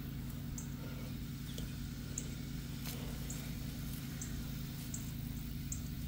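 A gloved hand digging and rustling in dry soil and grass under a steady low hum, with short high chirps about once a second.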